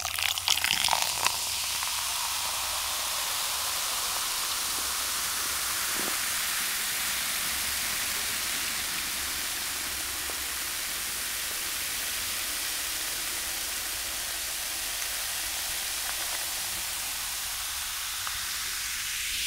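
Steady, even hiss.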